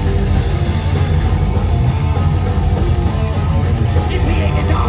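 Thrash metal band playing live and loud: distorted electric guitar, bass guitar and drums, with a heavy low end.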